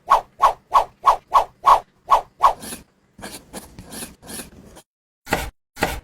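Rhythmic scraping strokes, about three a second, on the materials of a miniature build, then softer scraping and two louder strokes near the end.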